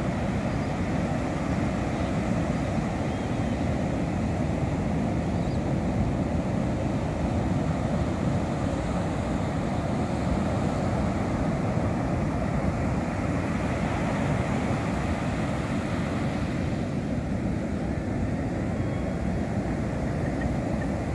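Steady roar of ocean surf breaking on a sandy beach, mixed with low wind rumble on the microphone.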